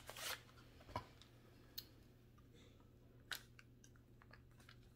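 Faint crinkles and sharp clicks of an eyeshadow palette's plastic packaging being pulled and picked at to get it open: a short scratchy rustle at the start, then a few isolated clicks over a low steady hum.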